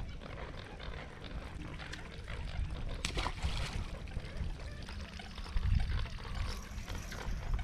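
Water splashing and trickling at the surface beside the boat, under a low wind rumble on the microphone that swells near the end, with one sharp click about three seconds in.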